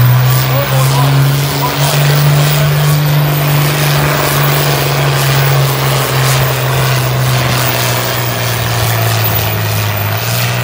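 John Deere diesel farm tractor pulling a weight-transfer sled at full throttle, its engine a loud, steady drone whose pitch sags slightly in the second half as it works under the load.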